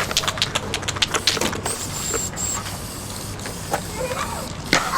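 Aerosol spray-paint can being shaken, its mixing ball rattling in a quick run of clicks for the first second and a half, then quieter, with one sharp click near the end.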